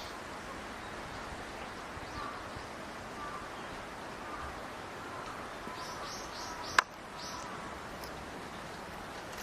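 Grey bunting calling: a quick run of four or five thin, high, falling call notes about six seconds in, over a steady outdoor background hiss. A single sharp click comes in the middle of the run and is the loudest sound.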